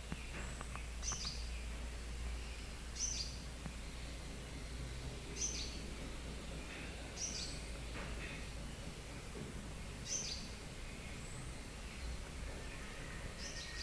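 A small songbird giving short, high chirps, six in all at intervals of about two seconds, over a steady low hum.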